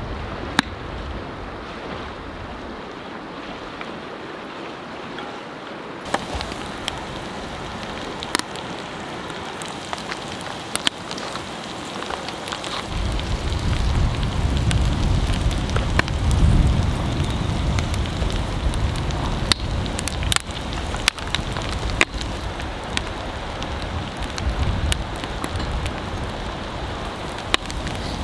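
Wood fire crackling and popping in a stainless steel fire pit, sharp irregular pops over a steady hiss. A low rumble comes in about halfway through.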